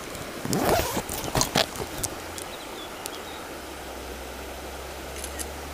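A few rustling and clicking handling noises in the first two seconds, then the steady rush of a flowing stream.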